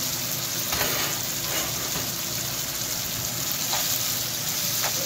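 Chopped onion, bell peppers and tomato sizzling steadily in oil in a frying pan, with a few faint clicks of the spatula against the pan as it is stirred.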